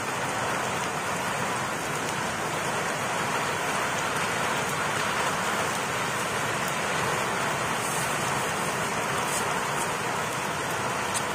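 Steady hiss of falling rain, with a few faint clicks in the second half.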